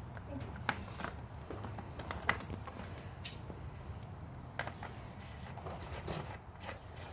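Scattered light clicks and taps over a low steady hum: hand work fitting screws into a motorcycle fairing.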